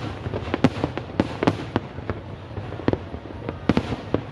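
Aerial fireworks display going off: a quick, irregular run of sharp bangs, thinning for a moment about two seconds in before another cluster of bangs near the end.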